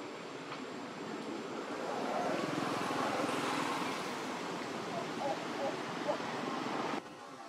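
Steady outdoor background noise with a few short high squeaks about five to six seconds in, from a newborn macaque being dragged along the ground by a juvenile; the sound cuts off suddenly near the end.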